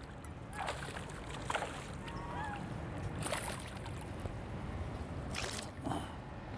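A hooked bass splashing and thrashing at the pond's surface as it is played to the bank, in several short bursts of splashing.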